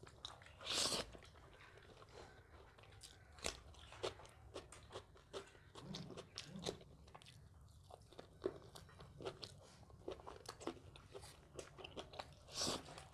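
A person chewing and crunching food close to the microphone: a run of small crisp crunches and wet mouth clicks, with two louder noisy sounds about a second in and near the end.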